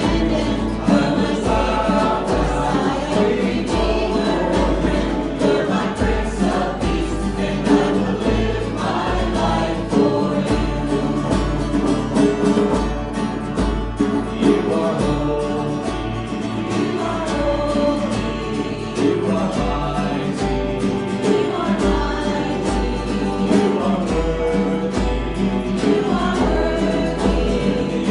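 Church congregation and worship band performing a worship song: many voices singing together over instrumental accompaniment with a steady low beat.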